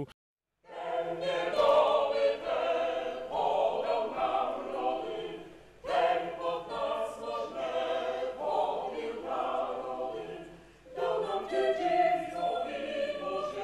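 Vocal ensemble singing choral music, sustained chords in several voices. The singing starts just under a second in and breaks briefly between phrases about six and eleven seconds in.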